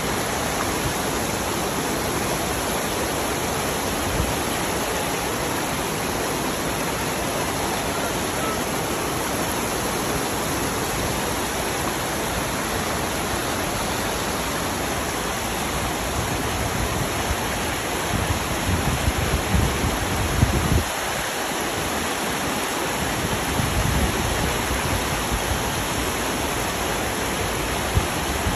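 Floodwater rushing down a street in a steady, loud wash, like a stream in spate. A few low rumbling buffets come through about two-thirds of the way in.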